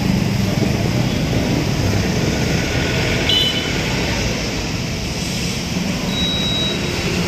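A motorcycle engine running steadily as it passes by, with tyre noise from the wet road, easing off a little in the second half.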